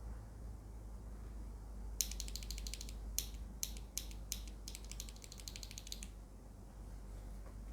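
Typing on a Heavy Shell Kira96 mechanical keyboard with KTT cabbage tofu linear switches and PBT keycaps: a fast flurry of keystrokes, four separate presses, then another fast run, after which the typing stops.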